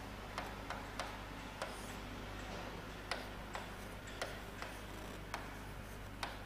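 Irregular light clicks and taps, one or two a second, of a pen or chalk writing on a board, over a steady low hum.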